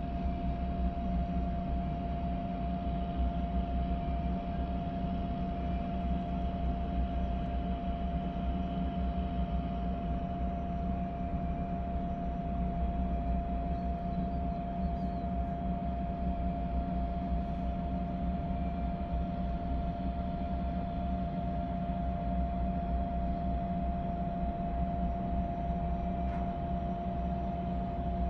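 Steady low drone of drilling-rig machinery running close by, with a constant mid-pitched hum over a deep rumble; no distinct pipe bangs stand out.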